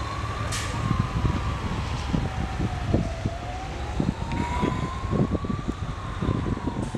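A siren wailing slowly up and down, each rise and fall taking about five seconds, over a steady low rumble.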